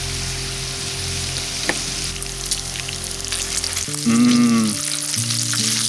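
Bacon burgers sizzling and crackling in a cast-iron pan over a campfire, with background music playing over it.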